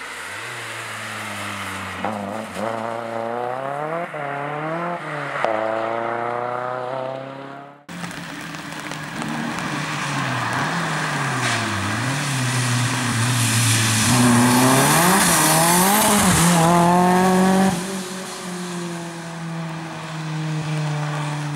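Turbocharged Opel Astra rally car at full stage pace, its engine revving hard and dropping back again and again with each gear change. About 8 seconds in the sound changes abruptly, and the engine then holds high revs, loudest a little past the middle, before falling back near the end.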